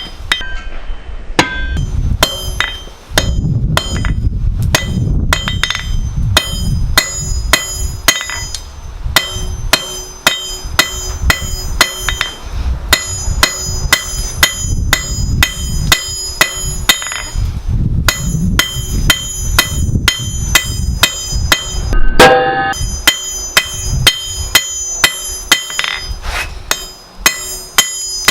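Hand hammer striking hot mild-steel round bar on an anvil in a steady run of blows, about two to three a second, with the anvil ringing after each one. The hammering stops for short pauses twice.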